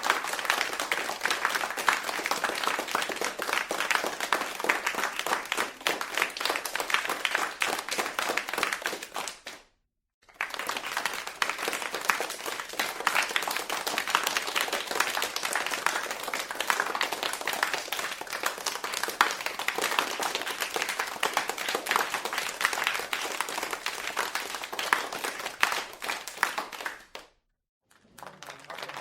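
A crowd applauding, a dense steady patter of many hands clapping. It breaks off into a short silence about ten seconds in, starts again, and stops once more near the end.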